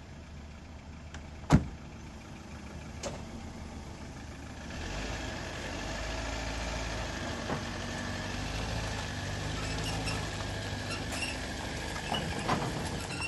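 A sharp knock like a vehicle door shutting, a lighter one after it, then an engine comes on about five seconds in and runs steadily at idle.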